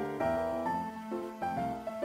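Background music: a piano melody of held notes that change about every half second.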